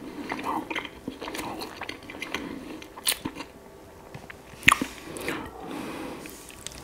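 Close-up chewing and biting of bread with honey, with wet mouth noises and scattered small clicks. There is a sharp click about three seconds in and a louder one near five seconds.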